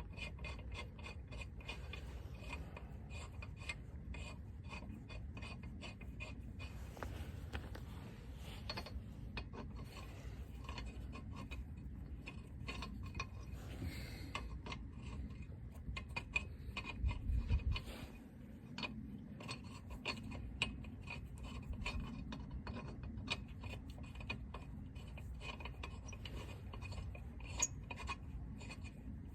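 Irregular small metallic clicks and scraping from hand work on a car wheel: a spare being fitted and lug nuts and wrench handled, over a steady low rumble. A heavier low knock comes about seventeen seconds in.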